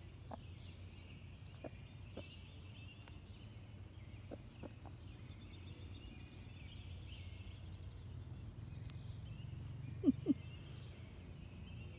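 Free-ranging laced Wyandotte hens giving soft, scattered clucks while foraging, over a low steady rumble, with songbirds chirping faintly in the background. Two louder calls come close together about ten seconds in.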